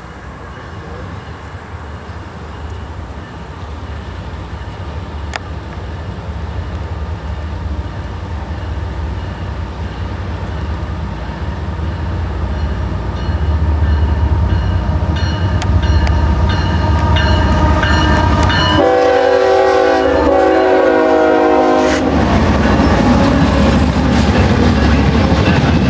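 Diesel freight train led by GE ES44AH and ES40DC locomotives approaching, its deep engine and wheel rumble growing steadily louder. About 19 s in, the locomotive horn sounds one long chord of about three seconds, then the locomotives pass close by with a loud rumble and wheel clatter.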